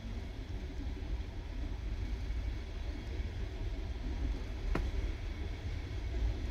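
Steady low rumble of a moving passenger train, with one sharp click about three-quarters of the way through.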